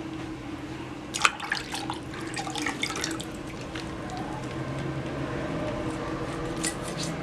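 Water splashing and dripping in short clusters, one about a second in lasting a couple of seconds and a briefer one near the end, over a steady low hum.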